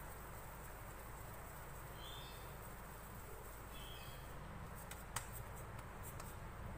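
Faint steady room hum, with two short high chirps about two and four seconds in and a single sharp click a little after five seconds.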